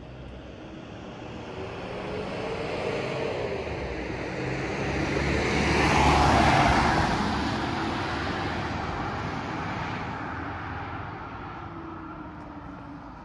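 A car passing close by on the street, its tyre and engine noise building over several seconds, loudest about six seconds in, then fading away.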